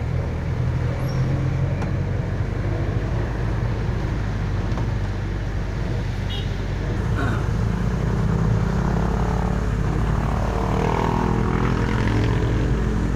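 Jeepney engine running steadily while under way, over a dense steady hiss of heavy rain. In the second half the engine's pitch shifts up and down.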